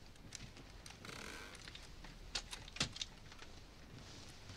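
Faint rustling of clothing and bedding with a few light clicks and taps as a person holding a rifle settles back onto a bed.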